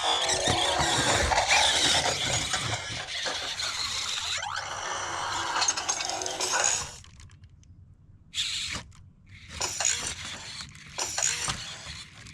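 Robosen Optimus Prime robot toy working its servo motors, with a dense mechanical whirring and clattering for about seven seconds that includes a rising whine partway through. After that it goes quieter, with a few short mechanical bursts.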